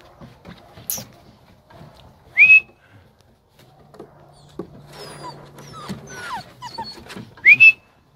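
A person whistles twice, a short rising whistle each time, about two and a half seconds in and again near the end, calling a Presa Canario puppy. Between the whistles come high, thin, wavering whimpers from the puppy.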